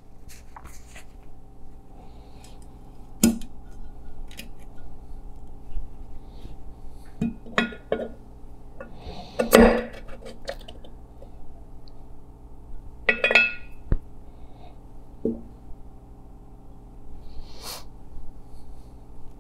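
Light metallic clinks and taps as a piston ring and piston are handled and pushed into the bore of an aluminium cylinder block. There are about seven scattered knocks, the loudest about halfway, over a faint steady hum.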